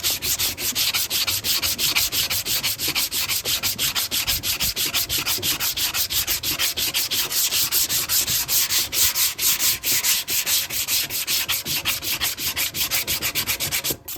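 Hand block-sanding of body filler on a metal motorcycle gas tank with 80-grit sandpaper: fast, rhythmic back-and-forth strokes, about five a second, that stop abruptly near the end.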